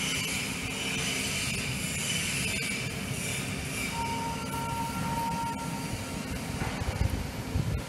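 Steady industrial machinery rumble, with a high squealing tone for about two seconds midway.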